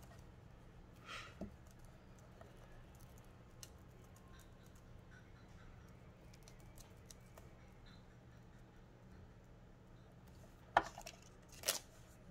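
Quiet handling of paper pieces on a craft table, with small scattered ticks and two sharp clicks about a second apart near the end.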